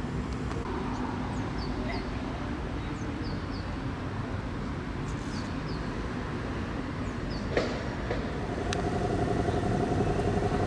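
A motor vehicle engine runs with a steady low rumble, with a few short high chirps over it. Near the end there is a sharp click, then the sound grows louder with a steady hum on two pitches.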